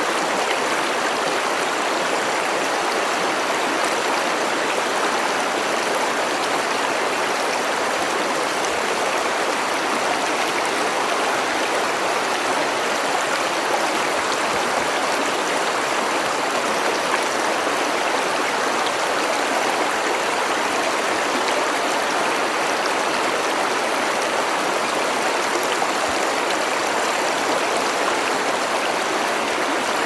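Mountain river flowing: a steady, even rush of water.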